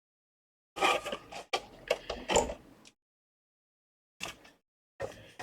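Plastic clicks and knocks from a PlayStation 5 console being handled as it is opened up, in a few short clusters with silence between.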